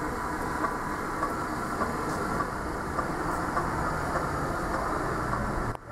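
Bridgeport Model E shaping head running under power: a steady motor and gear hum with a regular knock a little under twice a second as the ram strokes up and down. The sound stops abruptly near the end.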